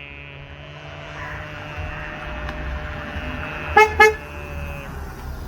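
A car horn gives two short, loud toots about four seconds in. Before them comes a long steady tone, over the low rumble of a car pulling up.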